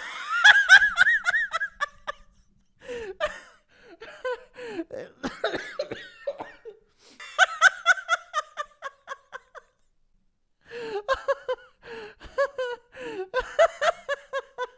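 A man laughing in several long fits of rapid, repeated 'ha' pulses, broken by short breaths and a silent pause of about a second two-thirds of the way through.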